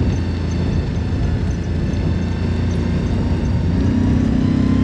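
Side-by-side UTV engine running steadily, its hum growing stronger and steadier about four seconds in.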